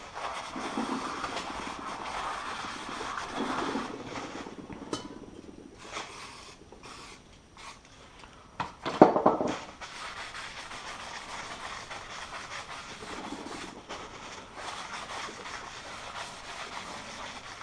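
Brake disc and hub surfaces being wiped clean by hand, with rubbing and scrubbing noise. A single loud, sharp metallic clank comes about nine seconds in.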